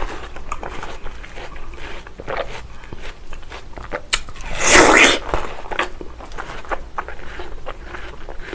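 A juicy, crisp bite into a wedge of watermelon comes about halfway through, a loud crunch lasting under a second. Wet chewing and small mouth clicks come before and after it.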